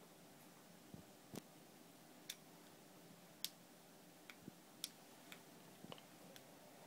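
Irregular small plastic clicks and taps from handling a key-fob camera and its mini-USB plug, about nine in all, over a faint hiss.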